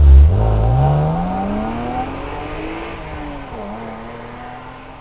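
Car engine accelerating: a loud low rumble at the start, then a pitch that climbs steadily, dips briefly about three and a half seconds in and climbs on, the sound fading away gradually.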